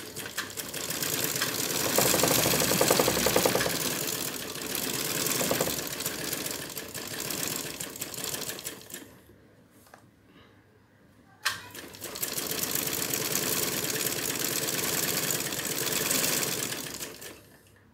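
Domestic straight-stitch sewing machine running, its needle stitching fast and evenly through cotton suit fabric. It stops about nine seconds in, then after a click a couple of seconds later starts again and runs until just before the end.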